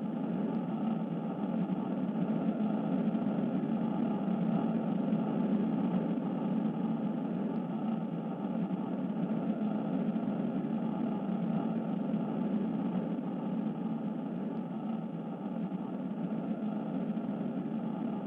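A steady, even rumbling drone, strongest in the low range, with no beats, strikes or changes in pitch.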